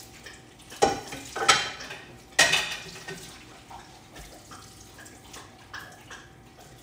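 Kitchen pots and dishes clattering: three loud knocks in quick succession about a second in, the last ringing briefly, then a few light clinks.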